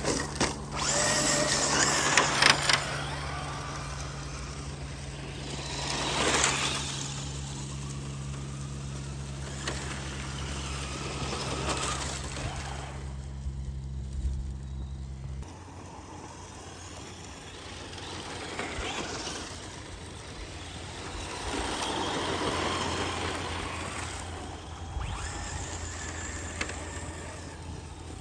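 Traxxas radio-controlled trucks driving on loose sand and dirt, with motor whine and tyre noise that swells and fades as the trucks pass closer several times. There are a few sharp knocks near the start.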